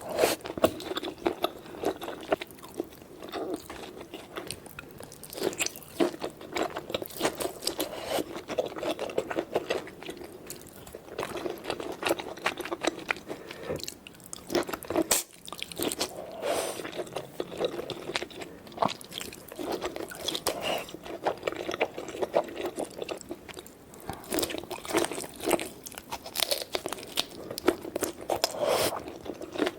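Close-miked eating: a person biting, crunching and chewing food, with a dense run of small sharp crackles and clicks.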